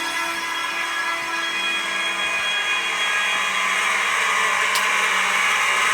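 Simplex fire alarm horns sounding continuously with a steady tone.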